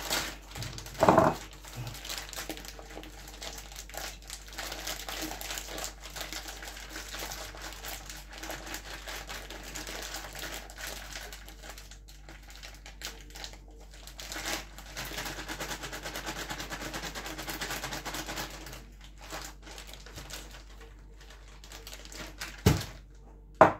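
Crinkling, rustling packaging and scraping as brown sugar is scraped out for a half-cup measure, on and off for most of the stretch. A single sharp knock comes near the end.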